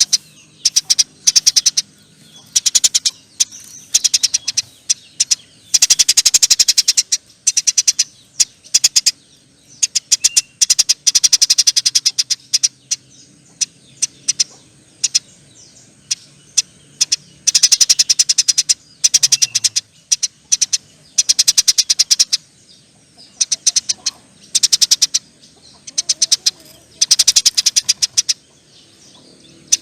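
Eurasian tree sparrow giving long, fast chattering trills, a rapid run of dry ticks repeated in bursts of one to two seconds with short gaps between them.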